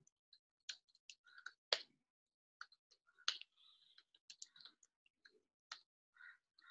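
Computer keyboard keys being typed: faint, irregular key clicks as a git checkout command is entered.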